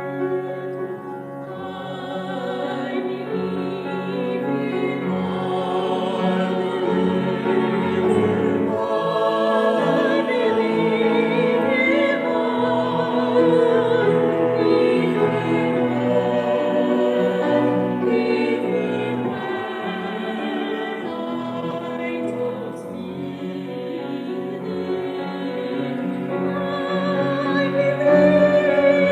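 Church music: classical-style singing with vibrato over sustained instrumental accompaniment.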